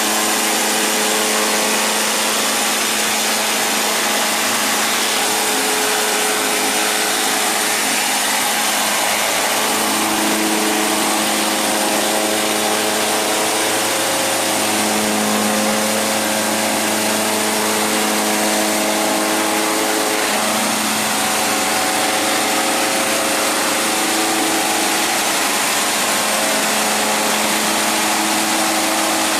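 CS300 concrete scarifier running, its electric motor driving the cutter drum as it strips an epoxy coating off a concrete floor: a loud, steady, dense grinding noise with a hum that wavers a little in pitch.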